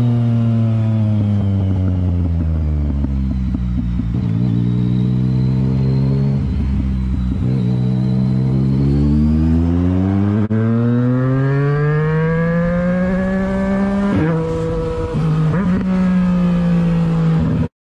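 Motorcycle engine under way: the revs fall as the rider rolls off the throttle, then climb steadily as it pulls hard, with two quick gear changes breaking the pitch near the end before the sound cuts off suddenly.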